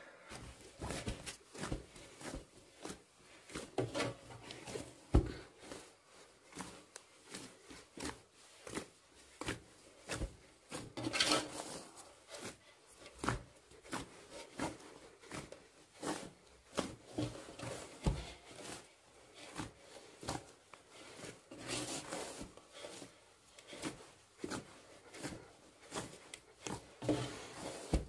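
Hands kneading a large batch of bread dough in a metal basin: a steady run of uneven pressing and slapping strokes, with the dough rubbing and scraping against the basin.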